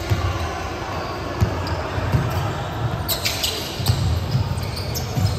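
Basketball being dribbled on a wooden court in a large sports hall, a string of thumps at uneven intervals, with a few short sharp high sounds about three seconds in over a steady hall background.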